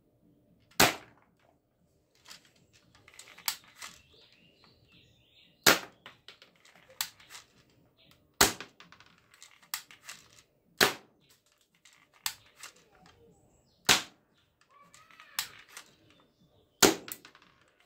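Plastic toy pistol firing small pellets at a cardboard box: six sharp, loud snaps a few seconds apart. Between the shots come quieter plastic clicks and rattles as the gun is handled and cocked.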